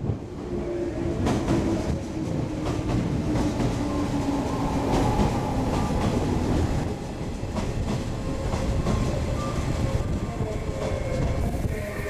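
A train moving along the platform track, its wheels clicking over the rail joints, with a running tone that sinks slightly in pitch over several seconds.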